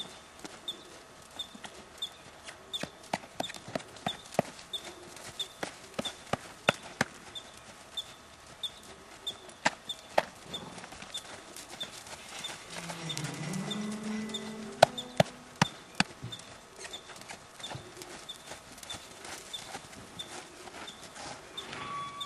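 Hooves of a saddled Haflinger horse striking the packed ground as it walks, with irregular sharp clicks. A faint high chirp repeats about twice a second throughout, and a low drawn-out call rises about halfway through.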